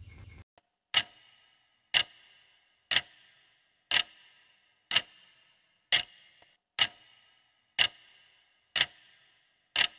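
Clock-tick sound effect ticking once a second, ten ticks in all, each with a short ringing tail, counting down the seconds of a countdown timer.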